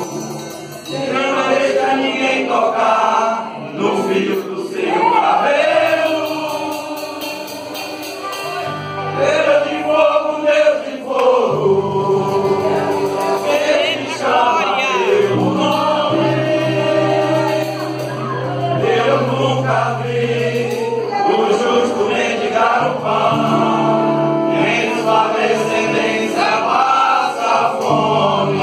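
Pentecostal men's choir singing a gospel song in Portuguese over instrumental accompaniment, with long held bass notes under the voices.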